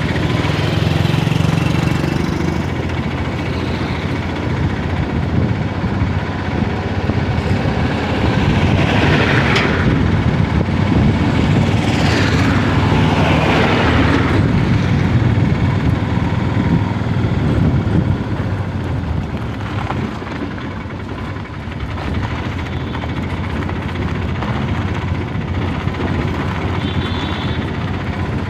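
A vehicle's engine running steadily while driving along a road, with road and wind noise; louder noisy swells come and go twice near the middle.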